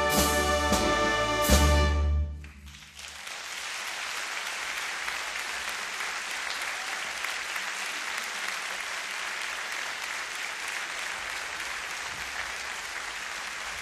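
Concert band playing a loud final chord with percussion strokes, cutting off about two seconds in; after a brief pause the audience breaks into steady applause.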